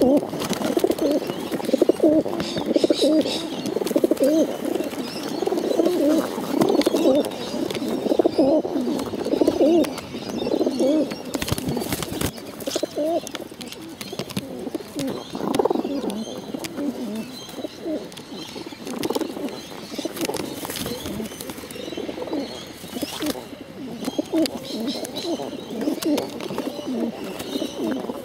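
Several rock pigeons cooing at close range, their throaty, warbling coos overlapping one another without a break.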